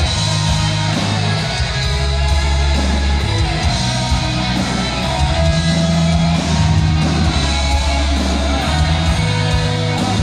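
Live heavy metal band playing loudly: distorted electric guitars over bass and drums, with some singing or shouting.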